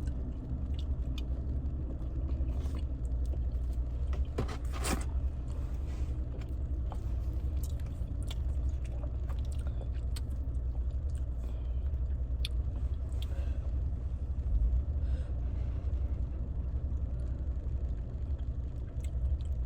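Chewing and biting into crispy fried chicken: scattered crunches and clicks, the loudest a little under five seconds in, over a steady low rumble.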